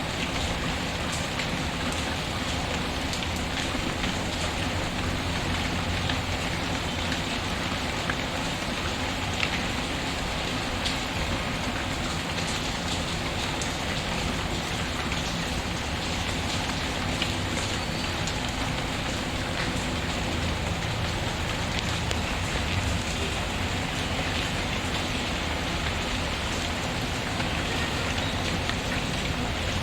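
Steady rain falling, with an occasional sharp crackle from a wood fire mixed in.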